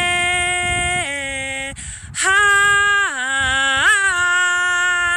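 A woman's voice singing wordless light-language tones: long held vowel notes that step down and up between a few pitches, with a short breath about two seconds in.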